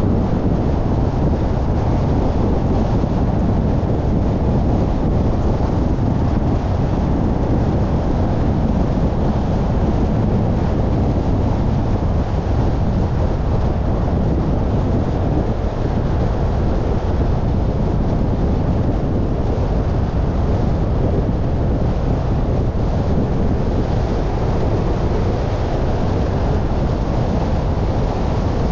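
Steady rumble of a car driving on city streets: tyre and road noise mixed with wind buffeting the microphone, even throughout.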